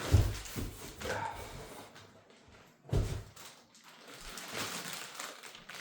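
Two dull, heavy thumps about three seconds apart, with rustling and scraping in between, as a suitcase is handled out of its cardboard shipping box.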